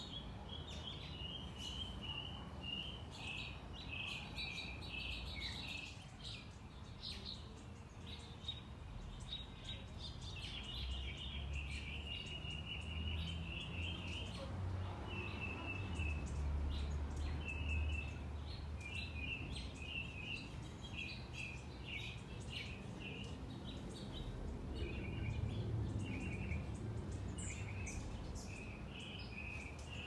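A flock of small backyard songbirds chirping continuously, many quick overlapping chirps, over a low background rumble that grows louder around the middle.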